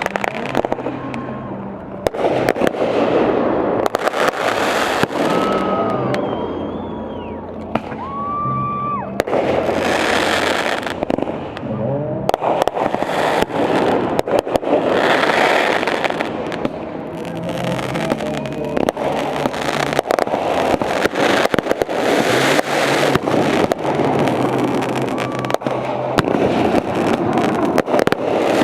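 A fireworks display with dense, continuous bangs and crackling. Several high whistles glide up and down in pitch in the first third.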